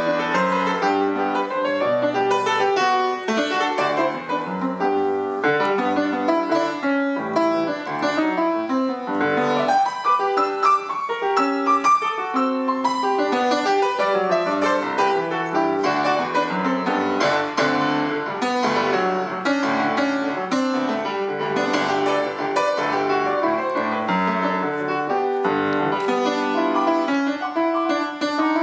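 Solo grand piano playing an Argentine folk dance piece arranged for concert piano: a steady stream of chords and quick melodic runs with no pauses.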